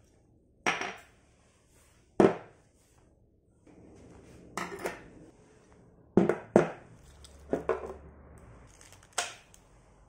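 Metal bicycle crankset parts being picked up and set down on a wooden tabletop: about eight sharp clunks and clatters at uneven intervals, some single, some in quick pairs.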